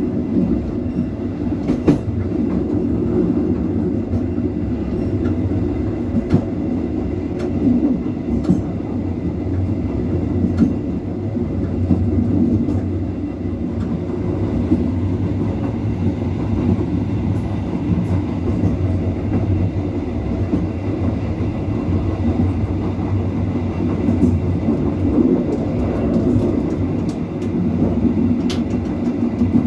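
Passenger train running along the line: a steady low rumble of wheels on the rails, with scattered irregular clicks as the wheels pass over rail joints.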